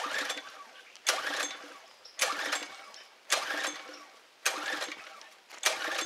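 Briggs & Stratton pressure-washer engine being pull-started on its recoil rope: six sharp pulls about a second apart, each a short burst of cranking that dies away. On the last pull, near the end, the engine catches and keeps going. It is a primed no-start engine that the owner suspects has a stopped-up carburetor.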